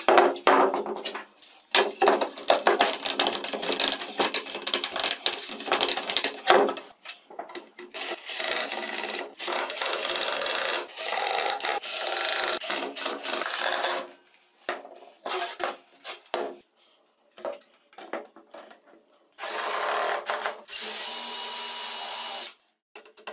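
Wooden parts and a plastic pipe being handled and set in place, with many knocks and scrapes. Then a cordless rotary tool runs for several seconds against the pipe's rim. Near the end a cordless drill runs in two bursts, boring holes into the side of the plastic pipe.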